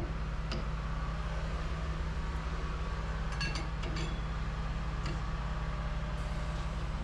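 Steady low machine hum in the tire shop, with a few light metallic clinks about half a second in and again between three and four seconds in.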